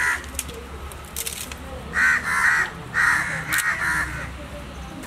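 Crows cawing in two short bursts of harsh calls, about two and three seconds in.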